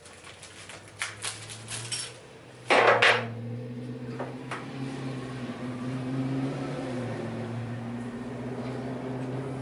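Metal engine parts clinking as diesel main bearing shells and caps are handled: several light clinks, then a louder clatter about three seconds in. A steady low hum runs underneath from about a second in.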